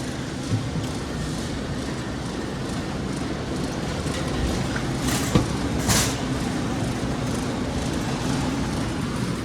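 Steady low background hum, with two short clattering sounds about five and six seconds in.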